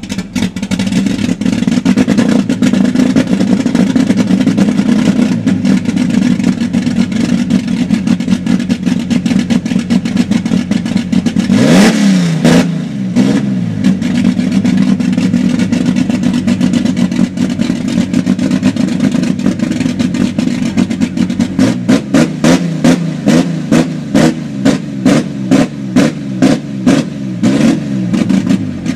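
Chevrolet Opala's engine running loud through its exhaust, revved up and back down once about twelve seconds in, then blipped rapidly over and over, two to three short revs a second, near the end.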